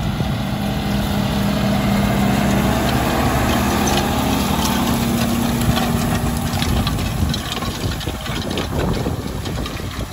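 Tractor diesel engine running under load as it pulls a Horizon SPX strip-till cultivator past, its steady engine note fading after about seven seconds. Clicking and rattling from the cultivator's discs and points cutting strips through gravelly, sandy soil.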